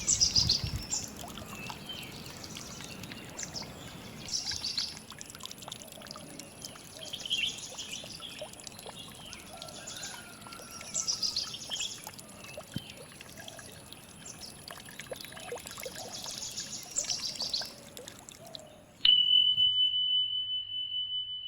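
Small songbirds singing outdoors: quick, high trilled phrases come every few seconds, with scattered lower chirps in between, over a faint steady high whine. About two seconds before the end the birdsong cuts out and a loud steady pure tone begins.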